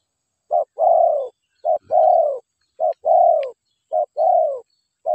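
Spotted dove cooing close by: a short note followed by a longer, falling coo, repeated about once a second.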